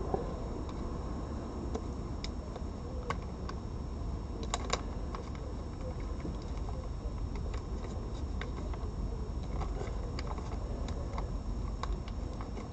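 A cat crunching dry food: irregular sharp clicks of chewing, loudest in a short cluster about four and a half seconds in, over a steady low background hum.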